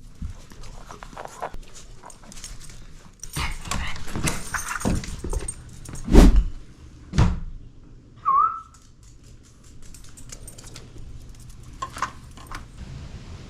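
A run of rustling and knocking handling noises with two loud thumps, then a single short high squeak or whine.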